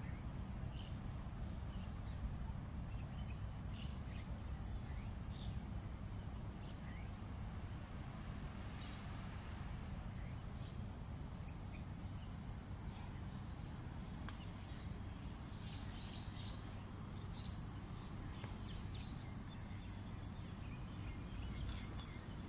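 Outdoor ambience of a steady low rumble, with scattered short, faint bird chirps and a thin constant high whine.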